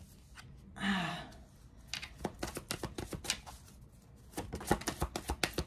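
A deck of cards being shuffled by hand: a quick irregular run of soft clicks and taps from about two seconds in. Before that there is a short breathy vocal sound.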